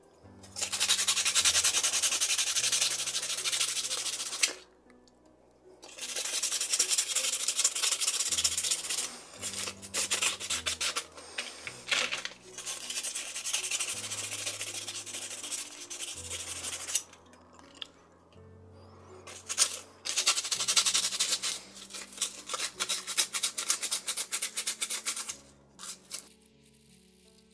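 The steel blade of FELCO 7 secateurs being scrubbed and rubbed clean with an abrasive, a dense scratchy rasping in four long spells with short pauses between them, over faint background music.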